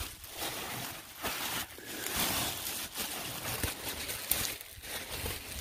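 Plastic bags rustling and crinkling in irregular bursts as gloved hands pull them back from vinegar-soaked steel bars.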